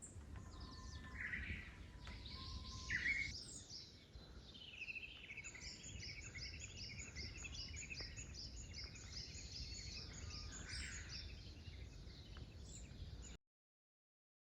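Wild birds calling outdoors over a low rumble of wind or ambient noise. Two short calls come in the first few seconds, then a long run of quick, repeated high chirps. The sound cuts to silence about a second before the end.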